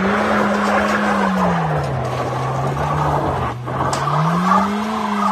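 Four-wheel-drive vehicle's engine revving hard on a dirt hill climb, the revs holding high, dropping after about two seconds and rising again near the end, over a loud hissing scrabble of tyres spinning and slipping on loose ground as it struggles for traction.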